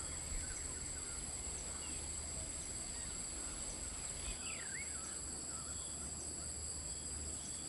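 Dusk tropical forest ambience: insects singing in steady high-pitched tones, with a few faint bird chirps about halfway through.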